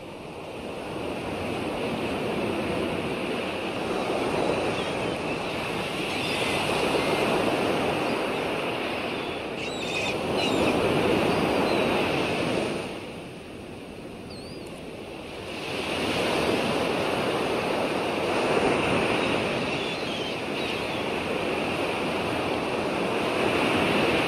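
Ocean surf: waves washing in and breaking, the noise swelling and falling in long surges every few seconds.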